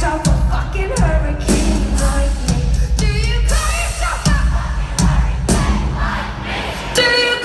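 Live pop concert heard from within the audience: a female singer's amplified vocal over a heavy electronic bass beat with hits about twice a second, with crowd voices mixed in. Near the end the bass drops out under one held sung note.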